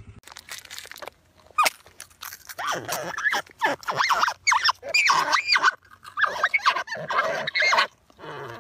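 Marmots squabbling: a string of short, high squealing calls that bend up and down in pitch.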